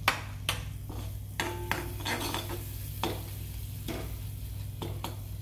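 Butter sizzling in a small aluminium kadhai as chopped onion goes in to sauté, with a steady frying hiss. Several sharp clicks and knocks of a glass bowl and utensils against the pan sound through it.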